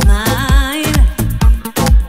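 Background music with a steady dance beat of about two strong beats a second, and a wavering melody line through the first second.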